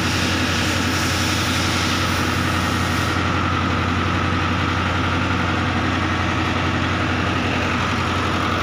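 An engine running steadily at idle: a constant low drone that does not change.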